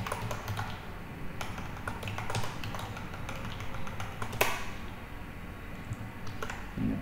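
Computer keyboard keys clicking at an irregular pace, with one sharper click about four and a half seconds in.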